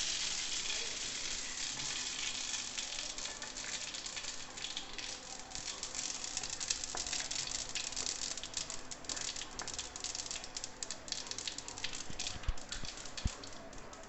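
Mustard and cumin seeds sizzling in hot oil in a kadhai, the mustard seeds crackling with many quick pops, thickest from about five seconds in: the tempering oil is hot enough for the seeds to splutter.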